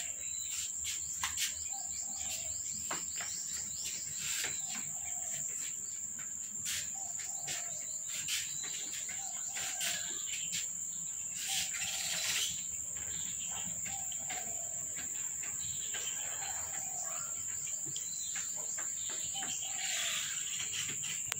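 Steady, high-pitched trilling of insects, with a short low call repeating about once a second and scattered light clicks.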